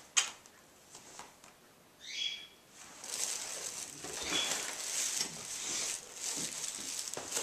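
Clothing rustling and shuffling as a person gets up and moves right up to the microphone, starting about three seconds in, after a single short click just after the start.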